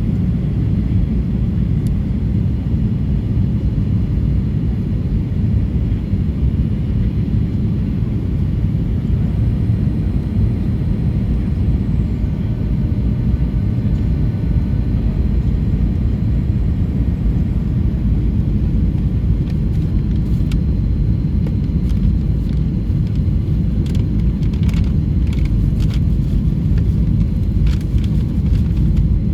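Steady low rumble of a Boeing 737-800's engines and airflow, holding level throughout, with a few faint clicks and rattles in the second half.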